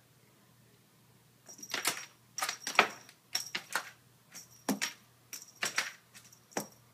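A cat pawing and clawing at a carpeted cat tree: bursts of quick scratching clicks, about eight of them, starting about a second and a half in, with a faint metallic jingle over them.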